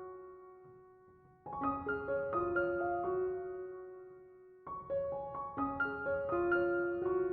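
Gentle piano music: phrases of single notes struck one after another, each ringing and fading, with the music dying down and starting a new phrase about a second and a half in and again near five seconds.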